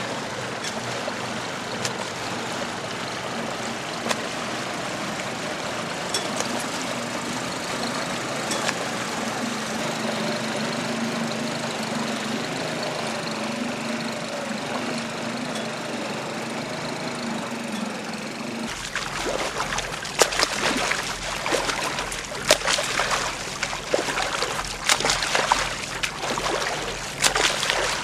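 A boat's motor running steadily with a low hum. About two-thirds of the way through, the sound changes suddenly to close, irregular water splashing from a swimmer's crawl strokes.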